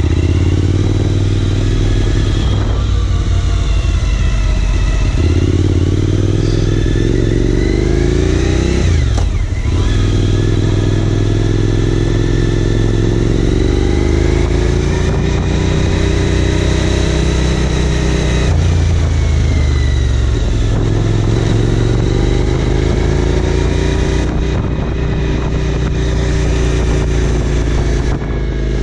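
Suzuki V-Strom 1000's V-twin engine heard from the rider's seat while riding, its revs climbing and falling through the bends. The pitch drops back sharply several times at gear changes, then rises again.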